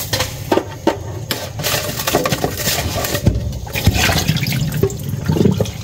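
Water splashing in a kitchen sink, uneven and coming in swells, with scattered sharp clicks and knocks of handling.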